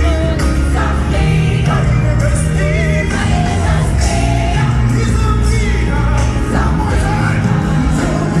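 Live gospel music: a band with strong bass and cymbals playing while voices sing the melody.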